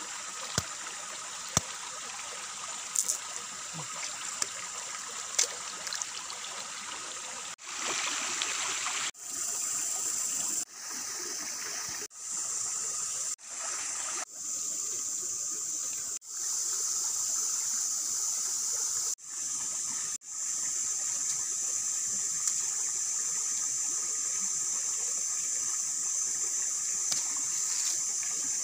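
Steady rush of running water with a steady high hiss over it, and a few sharp knocks in the first several seconds. The sound cuts out abruptly and resumes about ten times.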